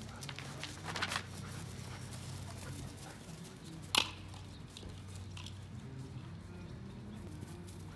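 A husky and a wolf scuffling and chasing each other on grass, paws thudding and scrabbling, with a cluster of short clicks about a second in and a single sharp knock about four seconds in. A steady low hum runs underneath.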